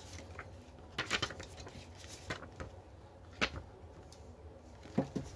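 Paper instruction leaflets and a card being handled and shuffled: a few short rustles and flicks of paper, about a second in, twice more in the middle and twice near the end, over a faint steady low hum.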